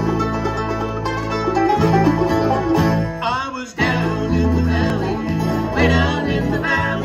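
Bluegrass band playing an instrumental opening, with banjo, acoustic guitars and electric bass guitar. The music drops out briefly just past halfway and comes straight back in, with the bass notes standing out.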